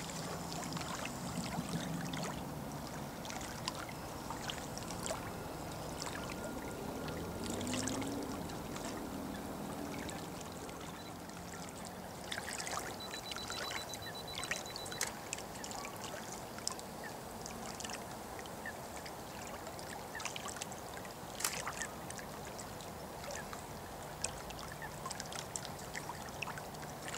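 Lake water lapping against a stone shoreline, a steady wash with many small scattered splashes and clicks.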